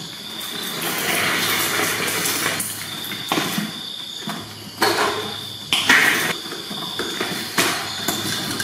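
Kittens scrambling through the holes of a cardboard box house, a few sharp knocks and scrapes of bodies and claws against the cardboard over a steady hiss.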